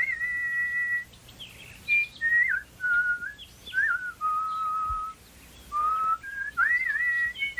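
A whistled, birdsong-like melody in short phrases with brief pauses: clear single notes, some held for about a second, others short with quick slides up and down between them.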